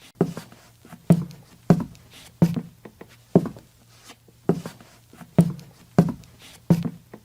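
Footsteps, a slow walking pace of roughly one step every 0.6 to 1 second, each a dull thud, over a faint steady low hum.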